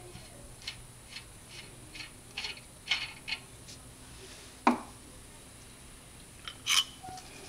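Light metallic clicks and clinks of small parts being handled at a truck's wheel hub, about two to three a second at first, then one sharper click in the middle and a couple more clinks near the end.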